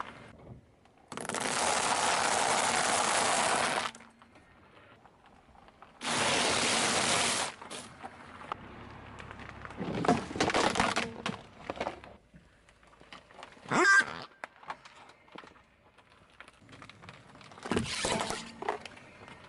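A car tyre rolling onto and crushing small objects: two long stretches of steady noise, then a few sharp cracks and snaps of plastic giving way under the wheel.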